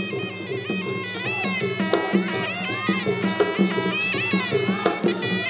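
Traditional Kun Khmer ringside music: a sralai, the Khmer reed oboe, playing a winding melody full of pitch bends over steady drum beats.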